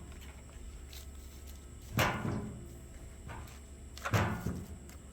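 A few sharp clicks and knocks from hard plastic being handled, the two loudest about two and four seconds in.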